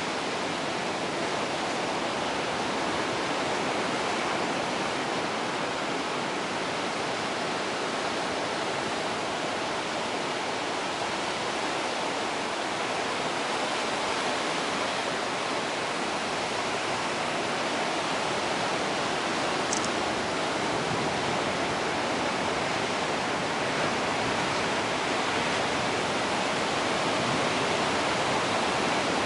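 Ocean surf washing in on a shore, a steady rushing hiss that grows a little louder near the end.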